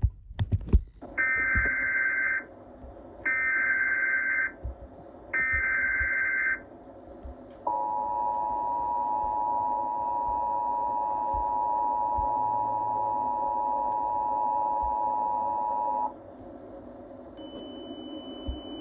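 Emergency Alert System header and attention signal: after a few clicks, three separate bursts of screeching SAME data code, each a little over a second long, then the steady two-tone EAS attention signal held for about eight seconds before it cuts off. The sequence announces an emergency alert, here a tornado warning.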